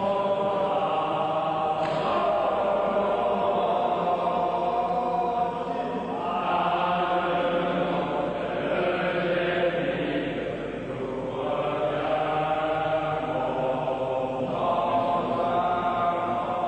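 A group of men singing a slow, chant-like song together, in long held phrases a few seconds each.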